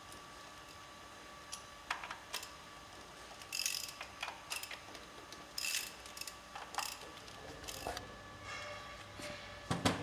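Metal tools and parts being handled on a truck engine: scattered clicks and knocks, with two short scraping rattles near the middle.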